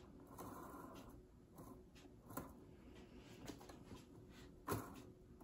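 Near silence: faint room tone with a low steady hum and a few soft clicks, the loudest near the end.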